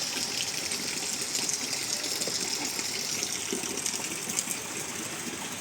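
Heavy rain falling steadily, an even wash of noise with a fine patter.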